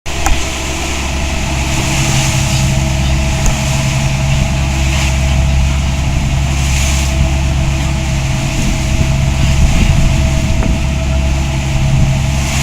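A boat engine running steadily at cruising speed, with a constant rush of wind and water.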